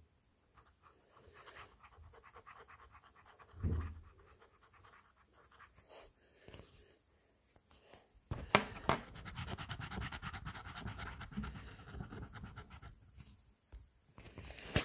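Faint scratching of a red paint marker's tip rubbing over sketchbook paper while colouring in a letter, with a soft thump about four seconds in. For several seconds past the middle, louder rustling and clicking from the handheld phone being moved.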